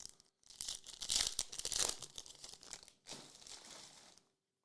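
Wrapper of an Optic basketball trading-card pack being torn open and crinkled by hand. There are two stretches of rustling, the first louder, and they stop about four seconds in.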